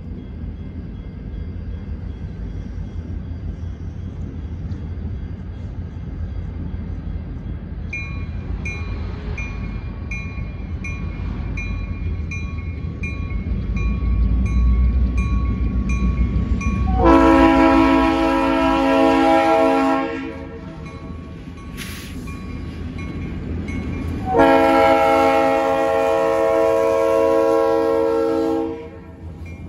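Diesel freight locomotive approaching, its low engine rumble growing louder, with a bell ringing at an even pace from about eight seconds in. The horn sounds two long blasts, the second cutting off shortly before the end.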